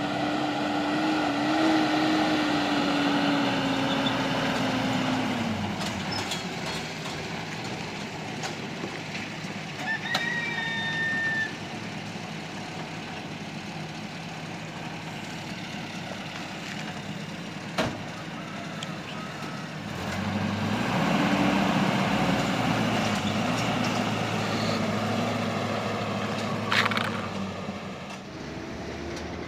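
An engine running steadily, its pitch dropping about five seconds in and picking up again about two-thirds of the way through, with a short high whistle-like tone and a couple of sharp clicks along the way.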